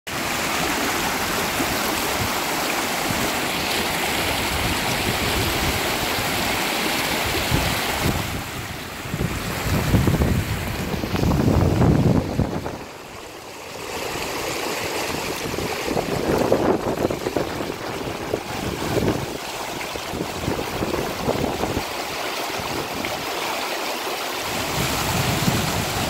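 Shallow river rushing and splashing over rocks, heard from just above the water surface: a steady wash of flowing water, briefly quieter about halfway through.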